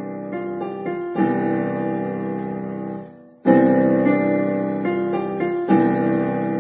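Electronic keyboard played with held chords and a melody moving over them, in phrases; the sound dies away briefly about three seconds in before the next phrase starts.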